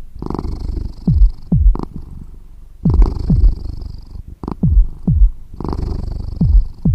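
Domestic cat purring loudly, the purr swelling and easing with each breath in cycles about three seconds apart.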